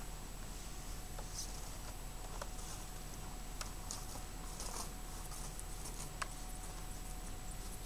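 Faint, scattered rustles and a few light clicks from raking leaves and then carrying the rake across the lawn, over a steady faint hum.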